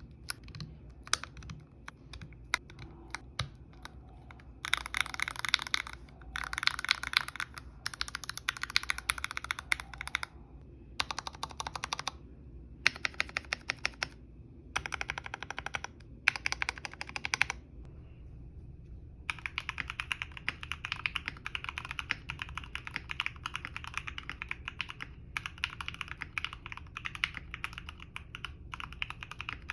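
Typing on a Tofu65 mechanical keyboard with an aluminium case and plate and Krytox-lubed Gateron Oil King linear switches, a thocky sound. A few single key presses come first, then fast bursts of typing with short pauses, and steady typing for the last third.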